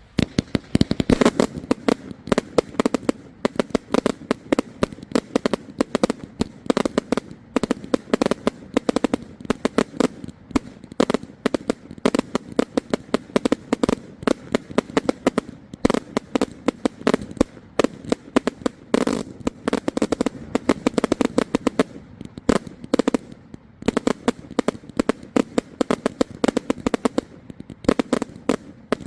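Knight Owl 1.4G comet salute cake firing: a continuous rapid string of loud salute bangs, several a second, without a pause.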